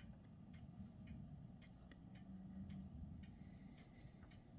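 Near silence with faint, irregular ticking, about three light ticks a second.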